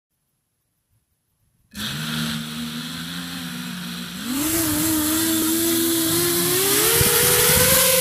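A small FPV quadcopter's brushless motors start up suddenly a couple of seconds in and idle with a steady whine. A little past halfway the pitch steps up, then keeps climbing as the throttle is raised.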